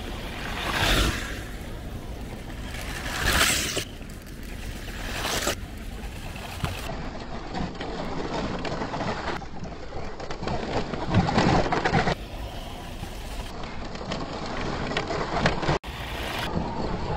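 Vintage RC buggies running outdoors: a rough, steady rumble of motors and tyres, swelling twice early on as cars pass close, broken by several abrupt cuts between clips.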